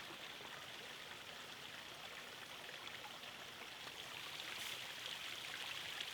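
Faint, steady background hiss, with a brief soft rustle about four and a half seconds in.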